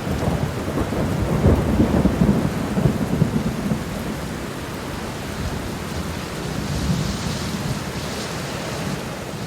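Heavy rain pouring steadily, with a crackling rumble of thunder rolling through the first few seconds and a fainter swell of rumble later on.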